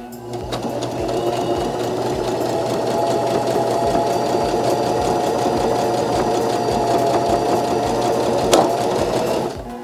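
Baby Lock Joy sewing machine running steadily while it stitches the first side of a four-step buttonhole through denim backed with tearaway stabilizer. It speeds up over the first second and keeps up a regular stitch rhythm over its motor hum. There is one sharp click about three-quarters of the way through, and the sound drops off briefly just before the end.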